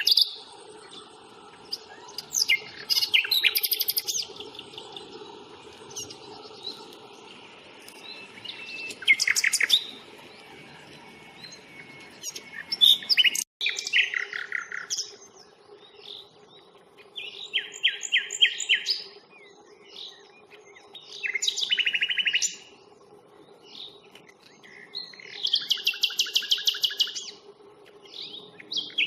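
Common nightingale singing: loud phrases of fast repeated notes and trills, each a second or two long, broken by short pauses.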